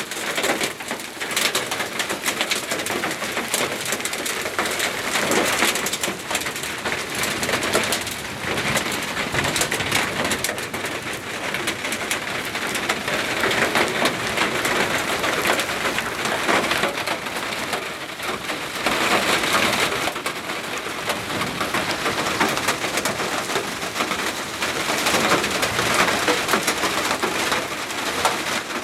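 Hail and rain pelting down, a dense, continuous clatter of many small impacts that swells and eases a little.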